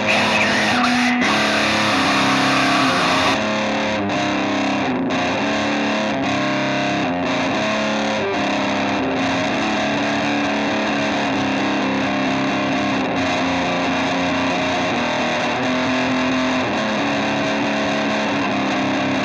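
Instrumental rock music led by distorted electric guitar, holding chords that change about every second.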